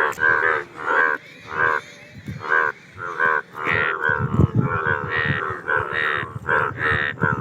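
Indian bullfrogs (Hoplobatrachus tigerinus) calling: a run of loud, harsh croaks repeated under a second apart, crowding into overlapping calls from several frogs in the second half.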